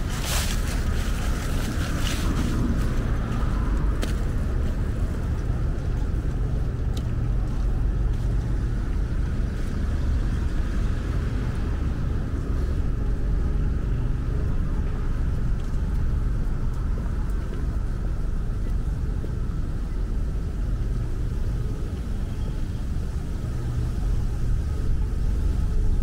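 A steady low rumble of outdoor background noise, with a few sharp clicks in the first few seconds.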